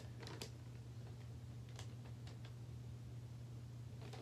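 Faint, scattered rustles and crinkles of loose sheets of paper being handled and sorted, over a steady low hum.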